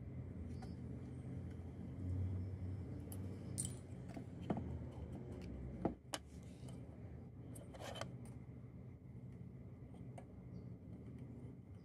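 Light clicks and taps of small metal hardware, tools and a plastic strip being handled on a wooden work surface, a few scattered sharp ones, over a low steady hum.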